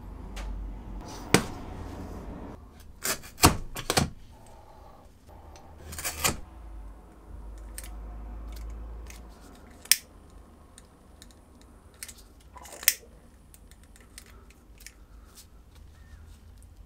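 Hand-handling noises from working a kydex knife sheath, its nylon belt loop and plastic spring clamps on a wooden workbench: irregular sharp clicks and knocks, with the loudest about a second in, a close cluster around three to four seconds, and single sharp clicks near ten and thirteen seconds.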